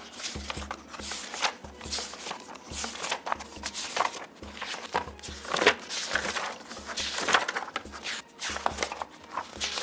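Paper pages being turned and rustled in quick succession: a continuous string of paper swishes and crackles, several a second.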